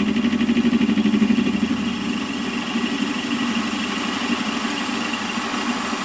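Warco WM180 lathe running while the tool takes a half-millimetre facing cut across the end of an aluminium block. A loud, fast-pulsing hum for about the first two seconds settles into a quieter, steadier running sound.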